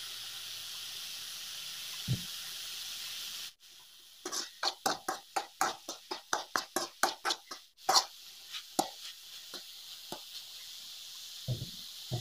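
A metal spoon stirring and scraping a stir-fry of chopped cashew sprouts and grated coconut in an aluminium kadai, over a steady frying hiss. In the middle comes a quick run of scraping strokes, about four a second, with a few single knocks of the spoon on the pan before and after.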